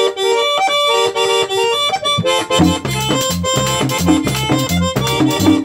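Merengue típico played on a button accordion, tambora drum and metal güira: the accordion plays a melody alone, then about two seconds in the tambora and güira come in with a steady dance rhythm.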